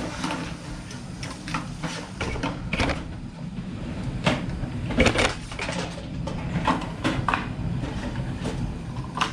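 Irregular knocks and clatters of scrapped computer parts being handled and set down, the loudest about five seconds in.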